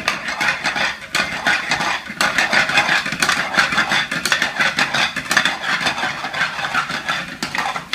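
Chopped onion frying in butter and oil in a pan: a steady sizzle with the clatter and scrape of a spoon stirring against the pan. The onion is turning golden brown.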